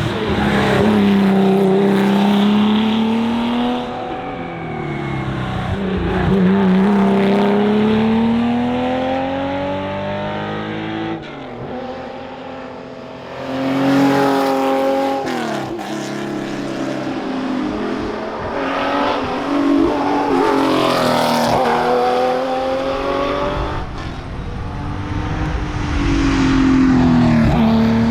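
Porsche 911 RSR's flat-six engine pulling hard through the gears, its pitch climbing and then dropping again and again at gear changes and lifts for corners, with a quieter lull about halfway through.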